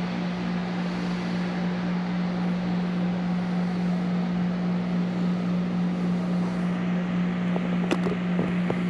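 Steady machinery hum in a machine shop: a constant low drone over an even hiss, with a few light clicks near the end.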